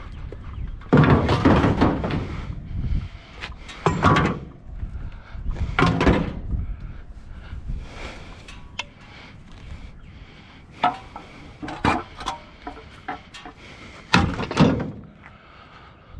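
Scrap metal and junk being handled and moved: a series of knocks, thuds and clanks, the heaviest about a second in and another near the end.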